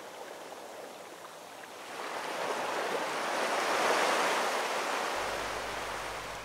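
Small waves washing up onto a sandy beach, one wash swelling about two seconds in and fading away near the end.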